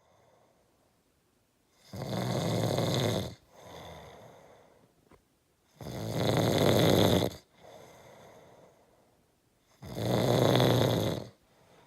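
A person snoring deeply: three loud, rattling snores about four seconds apart, each followed by a softer breath out.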